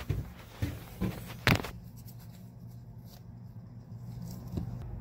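Steady low hum of a shoe-repair finishing machine's motor running, with four sharp knocks of handling in the first second and a half.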